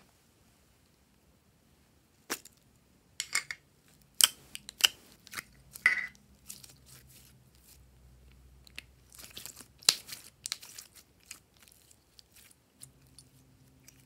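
Glossy slime being stretched and squeezed by hand, giving a string of sharp, wet clicks and crackling pops as air pockets in it burst. The pops start about two seconds in and thin out after about eleven seconds.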